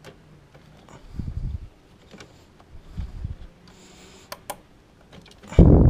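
Handling noises in an engine bay as spark plug wires are moved and fitted around the ignition coil: a couple of dull low thuds, two light clicks, then a louder thump near the end.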